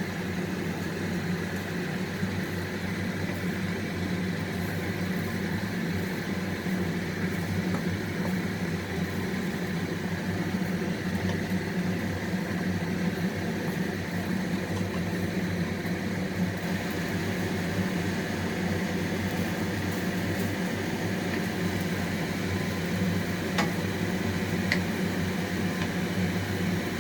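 A steady mechanical hum with a few faint steady tones above it, like a fan or motor running, and two faint clicks near the end.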